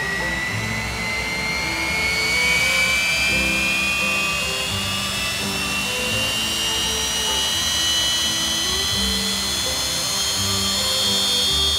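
Rolls-Royce Avon axial-flow turbojet whining, its pitch rising slowly and steadily as the engine spools up. Background music plays underneath.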